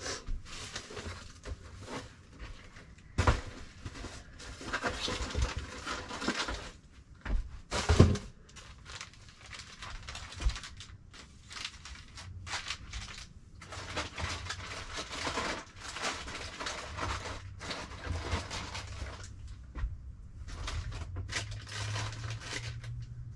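Rustling and handling of household items, bags and boxes as things are sorted, with a few sharp knocks, the loudest about 3 and 8 seconds in. A low hum comes in about halfway through.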